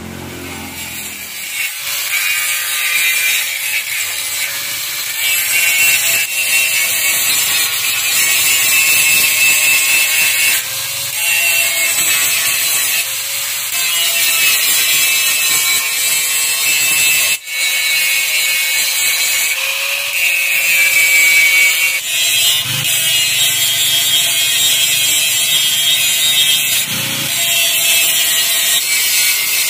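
Electric angle grinder with an abrasive disc grinding the steel edge of a rusty motorcycle fuel tank. It starts up about two seconds in, and its whine sags and recovers as the disc is pressed on and eased off the metal. It cuts out for a moment about halfway through.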